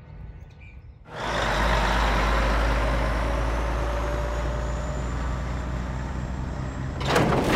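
Video-game sound of a heavy semi truck driving: a steady engine and road noise with a deep rumble, starting about a second in. It gives way to a burst of louder clattering noise near the end.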